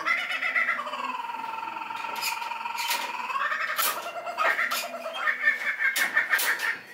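Laughing kookaburra giving its laughing call: a long, wavering note that dips and rises, then breaks into fast, chattering notes.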